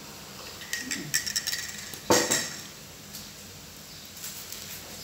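A metal spoon clinking a few times against a ceramic coffee mug, then one louder knock with a short ring about two seconds in.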